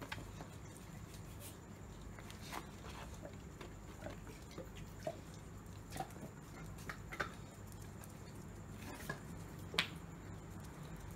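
Dogs eating raw meat pieces: scattered soft clicks and smacks of chewing and licking, with one sharper click near the end, over a steady low hum.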